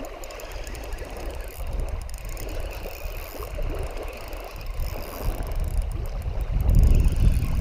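Wind rumbling on the microphone and small waves lapping on a gravel shore, with the soft whir of a spinning reel cranked steadily to reel in a hooked fish. The wind rumble grows stronger near the end.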